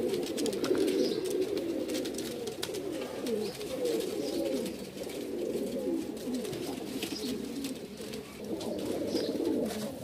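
Domestic pigeons cooing continuously, several calls overlapping, with scattered light clicks.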